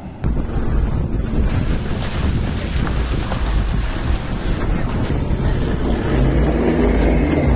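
Wind buffeting the microphone held out of a moving Toyota Fortuner's window, over the steady low rumble of its engine and tyres on a rough gravel track. The sound comes in suddenly just after the start.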